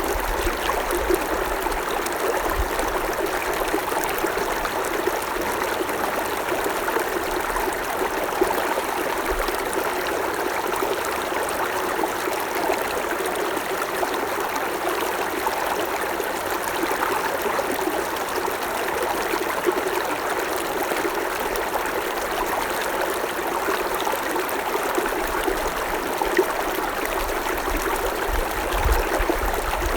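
Creek water flowing and trickling over stones, a steady babbling rush with small splashes flickering through it.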